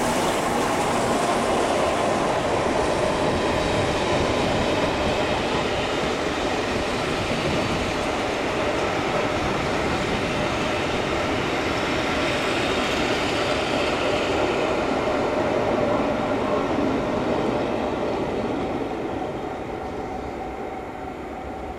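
Passenger train of coaches rolling past behind steam locomotives: a steady noise of wheels running on the rails that fades away over the last few seconds as the train leaves.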